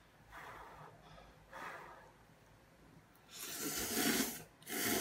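A person slurping instant ramen noodles off chopsticks: two loud slurps near the end, the first about a second long and the second shorter. They follow a couple of softer breaths earlier.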